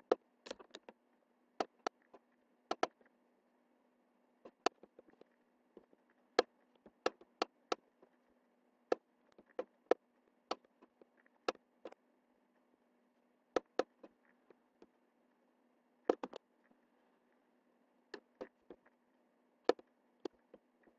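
Computer mouse buttons clicking at irregular intervals, mostly single clicks with a few quick double clicks, over a faint steady low hum.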